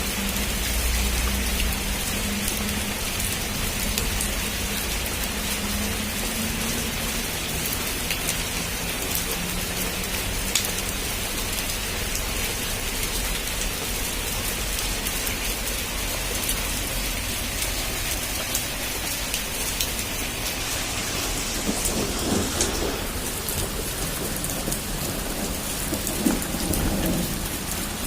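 Heavy rain falling steadily, with rumbles of thunder in the second half.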